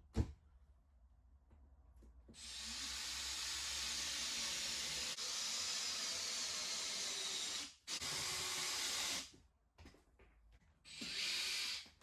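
Power tool cutting a plywood panel in three runs: a long cut of about five seconds, then two short ones of about a second each, with a few clicks near the start.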